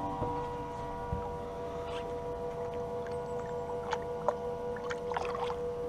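Steady electric hum of several even tones, whining over a low rumble aboard a fishing boat, with a few light clicks and knocks near the end.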